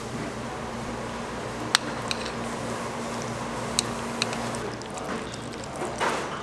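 Metal chopsticks mixing jajangmyeon noodles into thick black bean sauce in a bowl: a few sharp clicks of the chopsticks against the bowl in the middle, then wet squishing near the end, over steady room noise with a low hum.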